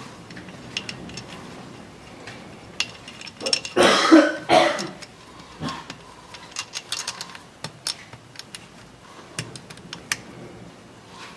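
Scattered light clicks and taps of tools and small metal engine parts being handled, with a person's loud cough about four seconds in.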